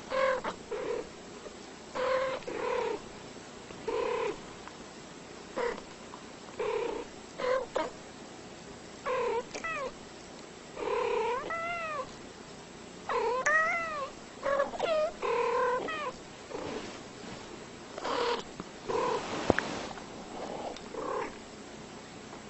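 A cat meowing over and over: about twenty short calls, roughly one a second, several bending up and then down in pitch about halfway through.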